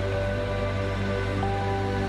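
Background music: calm, sustained notes held over a low steady drone, a new higher note coming in about one and a half seconds in.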